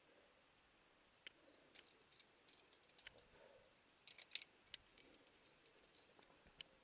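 Faint, scattered clicks and scrapes of a rock climber moving on the rock face, with a quick cluster of clicks about four seconds in as the loudest moment.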